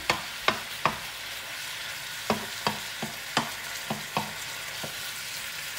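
Pork pieces sizzling in hot olive oil in a nonstick frying pan while a wooden spatula stirs and turns them. The spatula knocks on the pan in short taps, three near the start and a run of about six from a little over two seconds in.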